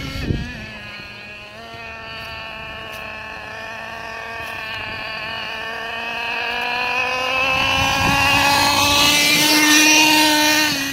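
Traxxas Revo 3.3 nitro RC monster truck's small two-stroke glow engine running hard as a high, steady whine. It grows louder and rises slightly in pitch as the truck comes back toward the microphone, and is loudest near the end. There is a brief thump just after the start.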